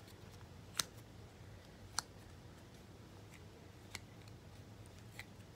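A few sharp clicks of hard plastic from a stick deodorant being handled. The two loudest come about a second apart near the start, with fainter ones near the end.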